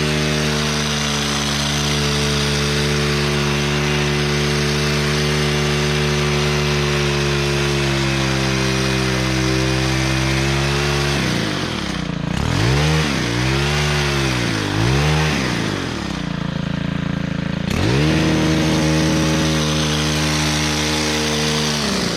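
Small two-stroke engine of a gas-powered trimming tool running at full throttle. About halfway through, the engine speed dips and rises three times, then drops briefly, then goes back to steady full-throttle running.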